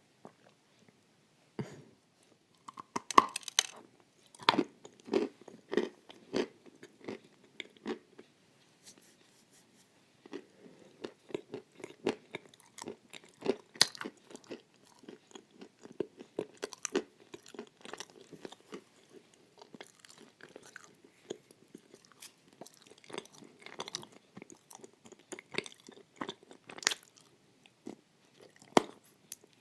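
A person biting and chewing pieces of clay coated in a soft white chalk paste. There are crisp cracking bites, loudest about three seconds in, then steady wet chewing with scattered sharp crunches.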